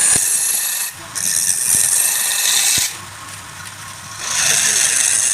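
A turning tool cutting into wood spinning on a lathe, giving a loud scraping hiss in passes. The cut breaks off briefly about a second in and again for over a second near three seconds in, when only the lathe's low running hum is left.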